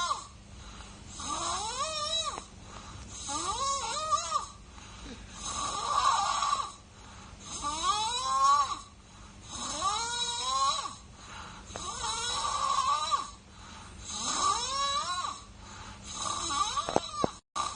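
A baby snoring in its sleep, about one breath every two seconds. Many of the breaths carry a squeaky note that rises in pitch, and others are plain rasping snores.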